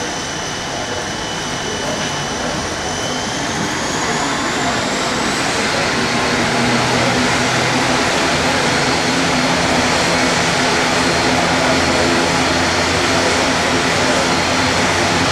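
ATR-72 turboprop engine starting, heard through terminal glass: a high whine rises over a few seconds and then holds steady, and a low propeller drone comes in partway through.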